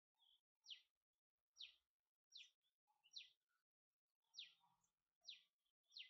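Faint, repeated chirp calls of a three-striped palm squirrel: sharp high notes, each sliding steeply downward, repeating about once a second.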